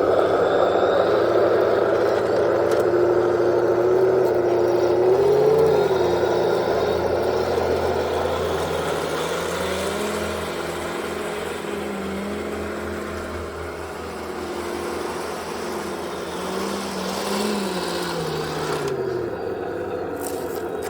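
Henglong T-72 remote-control tank running, its motor-and-engine sound rising and falling in pitch several times, then cutting out about two seconds before the end.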